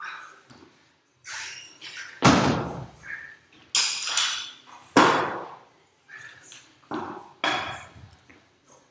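Loaded barbell with rubber bumper plates set down hard on a rubber gym floor over and over during barbell reps: about five sharp thuds a second or two apart, each dying away quickly, the loudest about two seconds in and again about five seconds in.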